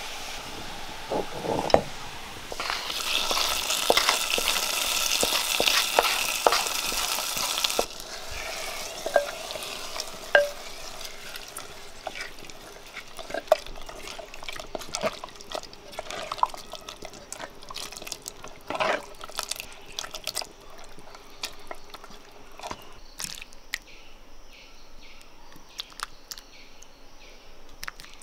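Oil sizzling in an iron kadai as shallots, curry leaves and dried red chillies fry for a tempering, stirred with a spoon; the sizzle is loudest for a few seconds, then cuts off. After that, a spoon stirring and scraping thick papaya curry in a clay pot, with scattered clicks and knocks.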